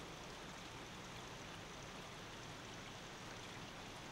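Faint, steady rain falling.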